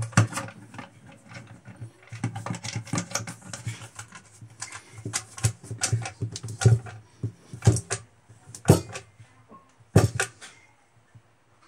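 Long screwdriver driving the stock bolt through a synthetic shotgun stock and its adapter into a Remington 870 receiver. Irregular metal-and-plastic clicks, scrapes and knocks, with a few sharper clicks about once a second in the second half.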